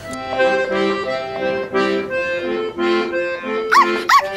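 Accordion music playing held chords, with two short yaps from a small dog near the end.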